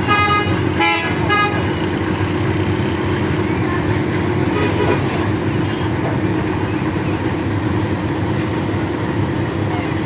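Diesel engine of a Someca combine harvester running steadily, with a vehicle horn tooting twice near the start.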